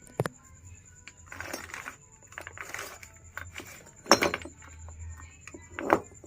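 Small metal parts being handled, with sharp clinks and knocks and a couple of short scraping, rustling stretches in between; the loudest clinks come in a quick cluster a little after the middle.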